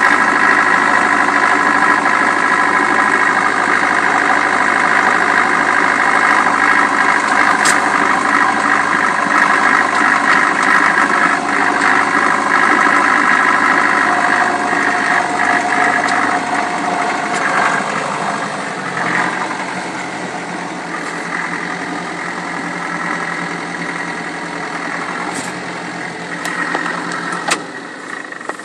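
Tractor's diesel engine running steadily while driving, heard from inside the cab. The engine note drops and quietens about two-thirds of the way through, with a few clicks near the end.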